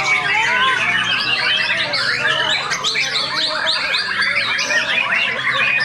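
Several white-rumped shamas singing at once: a dense, overlapping chorus of rapid whistles, chirps and trills.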